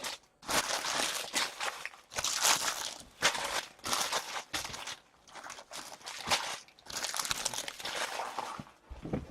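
Crinkling and crumpling of plastic card-pack wrappers, an irregular run of rustles and crunches.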